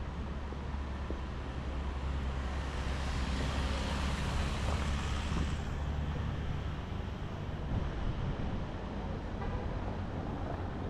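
City street traffic noise with a steady low rumble. A vehicle passes close, its hiss swelling and fading between about two and six seconds in.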